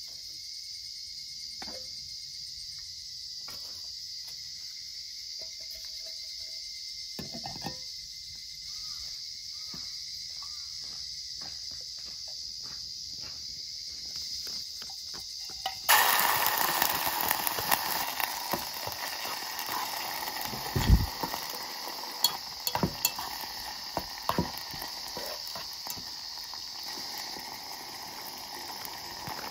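Food frying in hot oil in a thin aluminium pot: about halfway through, ingredients hit the oil and it breaks into a loud sizzle that then slowly eases, with clinks and knocks of a utensil stirring against the pot. Summer insects shrill steadily in the background, with only faint clicks before the sizzle starts.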